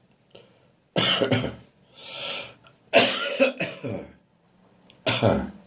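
A harsh, throaty cough from a chest cold. A fit of coughs comes about a second in, then a noisy breath drawn in, another run of several coughs, and a single last cough near the end.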